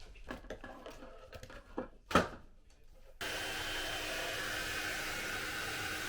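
Hair dryer switched on about three seconds in, then running with a steady even whoosh. Before that, light handling clicks and rustles, with one sharp click just after two seconds.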